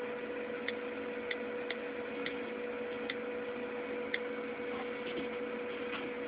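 iPod touch on-screen keyboard clicking as letters are tapped in: a run of short, irregularly spaced ticks for about the first four seconds, over a steady electrical hum.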